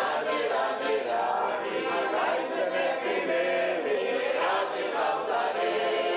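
A group of people singing a song together, many voices at once in a steady chorus.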